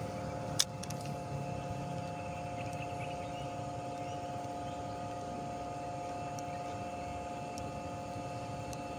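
A steady machine-like hum made of several held tones over a low rumble, with one sharp click about half a second in and a few faint ticks later.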